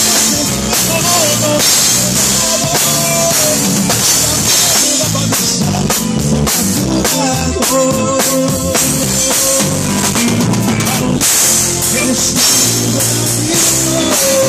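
Live Tejano band playing an instrumental passage with no vocals: a full drum kit keeps a steady beat with cymbal hits, a bass line moves underneath, and a melody line sits on top.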